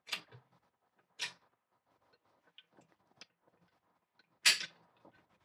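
Steel parts of an M1A rifle's action clicking and scraping as the operating rod handle is worked back into alignment with the bolt: a few sharp metallic clicks with faint ticks between, the loudest about four and a half seconds in.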